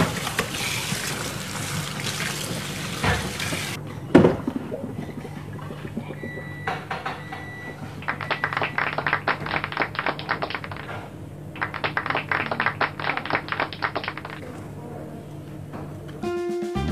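Water running and splashing in a kitchen sink as a whole rinsed chicken in a plastic colander is lifted and drained, then one sharp thunk about four seconds in. Later come two spells of rapid faint clicking over a low steady hum.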